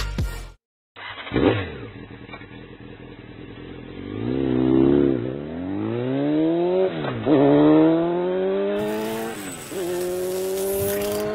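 A vehicle engine revving and accelerating through the gears. Its pitch climbs, falls back sharply at each gear change, twice, and climbs again.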